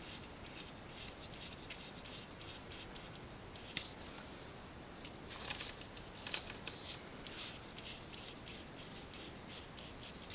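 A watercolour brush scratching softly across textured watercolour paper as a paint swatch is brushed on, with a few light clicks and taps in the middle.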